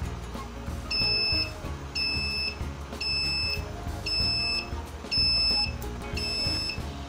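A high electronic beep repeats six times, each about half a second long and about one a second, over music playing.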